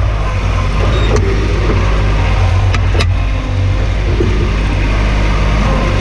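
Skid-steer loader's engine running steadily under the operator, with a couple of short metallic clanks about one and three seconds in.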